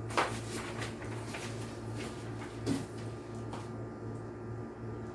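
Quiet room with a steady low hum and a few short knocks and clicks of things being handled, the clearest just after the start and another a little before three seconds in.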